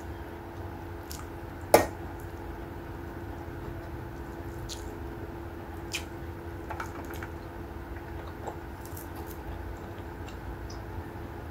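Close-up eating sounds: fingers squishing and mixing rice and fish on a plate, and wet chewing, over a steady low hum. One sharp, loud click comes a little under two seconds in, with a few fainter clicks later.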